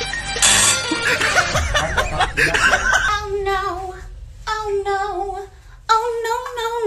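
A burst of loud, mixed noise and voices, then from about three seconds in a voice singing in long held notes, three phrases with short breaks between them.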